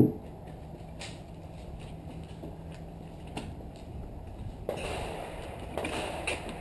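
Gunfire at an outdoor shooting range: one sharp shot right at the start, then a few faint distant shots over low steady background noise.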